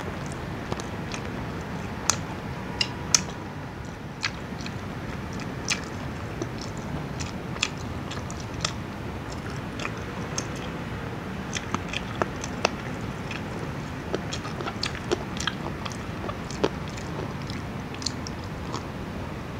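Close-miked eating: chewing and mouth sounds as fried chicken is bitten off the bone and then broccoli is eaten, with irregular sharp clicks and smacks over a steady hiss.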